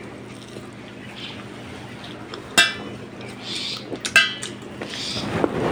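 Fingers mixing and scooping rice on a stainless steel plate, with soft squishing, over a faint steady hum. Two sharp, ringing metallic clinks against the plate come about halfway through and again a second and a half later.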